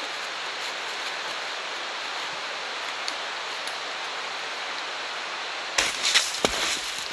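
Steady outdoor background hiss, then about six seconds in, close rustling of clothing and footsteps on the leaf-littered path, with a sharp thump, as a hiker walks right past the microphone.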